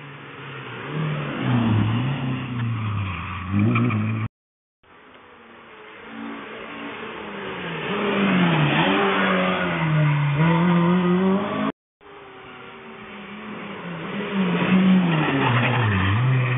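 Rally cars at speed on a closed tarmac road stage, passing one after another: each engine note swells as the car approaches, its pitch rising and dipping, loudest as it goes by. The sound cuts off abruptly twice between passes.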